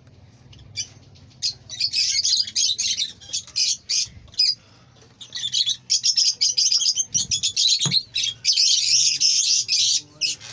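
Pet parrots chattering with rapid, high-pitched chirps and squawks in dense bursts.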